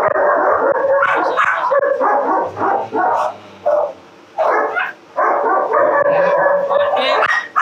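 Several dogs barking loudly, almost without pause, with a couple of short breaks a few seconds in.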